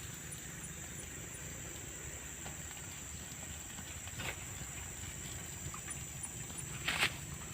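Outdoor evening ambience dominated by a steady high-pitched insect drone, with a faint repeating chirp about three times a second and a few sharp clicks, the loudest near the end.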